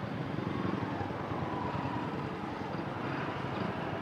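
Motorcycle engine running steadily while under way, with wind buffeting the microphone.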